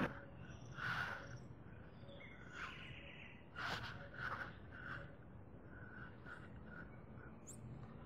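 Birds chirping, a string of short repeated calls over faint outdoor background noise.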